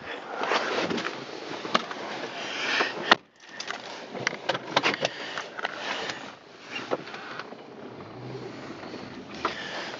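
A car working its way out of deep snow, its engine and tyres running under a scatter of sharp clicks and knocks. The sound breaks off suddenly for a moment about three seconds in.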